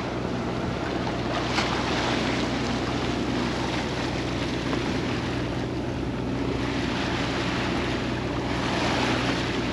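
Sea water rushing past a sailing yacht's hull in a choppy swell, with wind buffeting the microphone and a steady low hum underneath.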